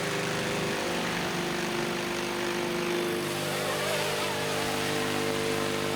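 Multirotor drone's propellers humming steadily in flight, several steady tones over a hiss, with a slight change in pitch about three seconds in.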